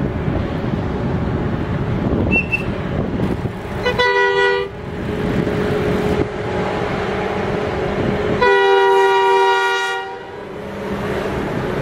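Freight train passing behind two Italian D744 diesel shunting locomotives, their engines and the rolling wagons making a steady rumble. The lead locomotive sounds its two-note horn twice: a short blast about four seconds in and a longer blast, about a second and a half, near the end.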